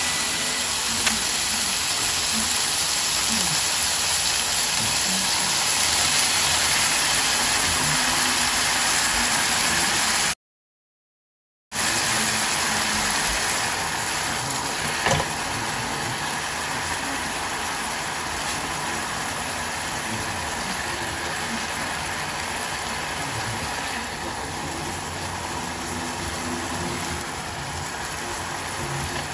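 Tofu braising in spicy chili-garlic sauce in a frying pan, with a steady sizzle of the bubbling sauce. It cuts out briefly about a third of the way in, then goes on a little quieter.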